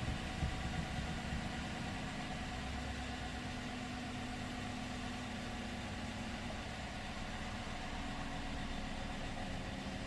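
2015 Chevrolet Silverado's 5.3-litre V8 idling steadily, with a few uneven pulses in the first second or so.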